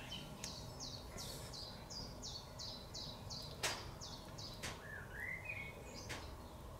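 A songbird singing: a quick run of about a dozen short, high, falling notes, three or four a second, then a lower rising warble. Two sharp clicks about a second apart fall in the middle.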